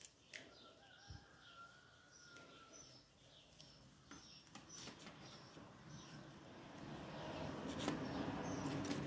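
Small birds chirping faintly, short high chirps repeated a few times a second. A low noise swells over the last couple of seconds.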